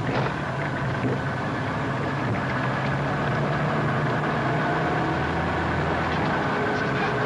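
Car engine running with road noise, heard from inside the cabin as a steady low hum with no sharp sounds.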